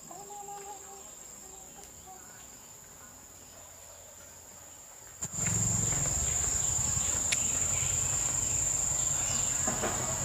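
A steady high-pitched insect trill that holds one pitch, faint at first and much louder from about five seconds in.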